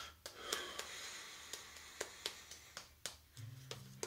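Shaving brush working lather on the face: a run of irregular wet, squishy swishes and clicks.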